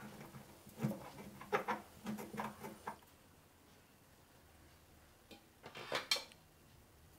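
Stone pestle pounding cardamom pods in a stone mortar: a run of sharp knocks for about three seconds, then it stops. A brief clatter follows about six seconds in.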